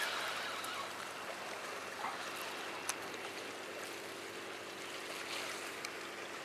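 Low, steady wash of sea water lapping against seawall rocks, with a small click about three seconds in.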